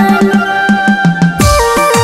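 Instrumental song music with a drum beat under held melody notes; about one and a half seconds in, the arrangement changes to deep electronic drum hits that drop in pitch.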